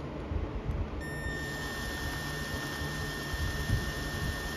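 Cordless drill with a 7/64 bit running slowly, boring into the soft aluminum plug over a Harley-Davidson CV carburetor's air/fuel mixture screw. A steady motor whine that drops out for about a second at the start, then carries on evenly.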